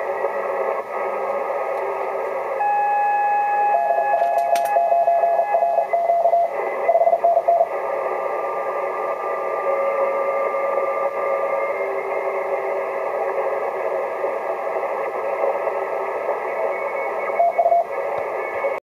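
Receiver audio from a Yaesu FT-950 HF transceiver on the 10-metre band in CW mode: steady band hiss through the narrow filter. Morse code is keyed on and off from about four to eight seconds in and again briefly near the end, and a few steady carrier tones come and go. A single click sounds about four and a half seconds in.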